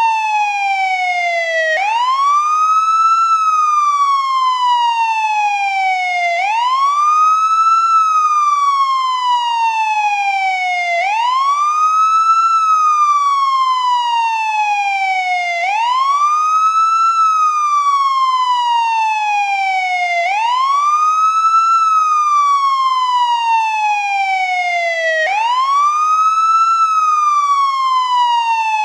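American police car siren on its wail tone. The pitch climbs quickly, then falls slowly, in a steady cycle about every four and a half seconds.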